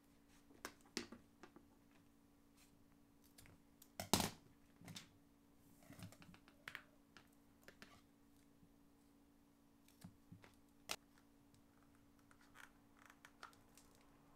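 Faint scattered clicks, taps and rustles of hands working LED strip wiring and cable on a board, with a louder knock about four seconds in, over a faint steady hum.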